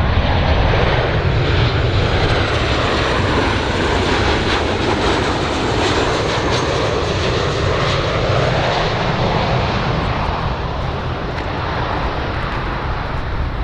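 Airplane engines, a loud continuous rushing noise whose tone sweeps slowly as the aircraft moves past, easing off a little toward the end.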